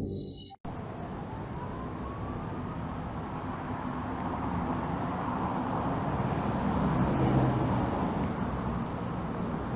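Music cuts off about half a second in, followed by steady rushing road-traffic noise. A faint tone rises during the next couple of seconds.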